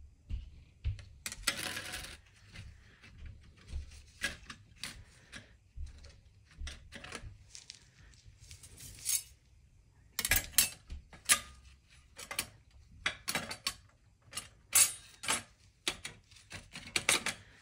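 Clutch plates of a ZF 8HP automatic transmission clinking and clicking against each other and the clutch drum as new friction plates and steel plates are fitted by hand. Irregular light metallic clinks, coming thicker and louder in the second half.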